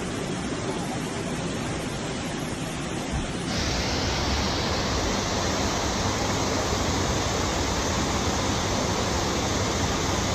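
Steady rushing hiss of heavy rain and floodwater. About three and a half seconds in it changes abruptly to a louder, brighter hiss.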